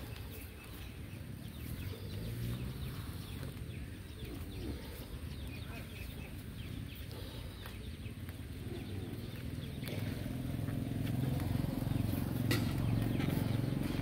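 Rubber balloons being inflated by mouth: repeated breaths blown into the balloons, over a low rumble that grows louder about ten seconds in.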